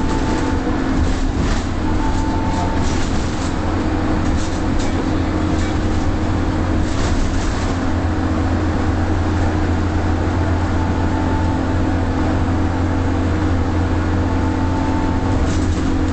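Leyland Olympian double-decker bus's diesel engine running steadily at cruising speed, heard inside the cabin as a low drone over road noise, with light rattles now and then, mostly in the first half.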